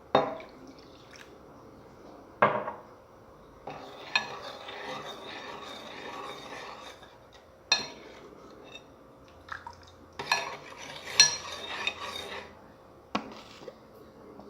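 A utensil clinking and knocking against a dish or container several times, with two stretches of scraping and stirring through the slime mixture.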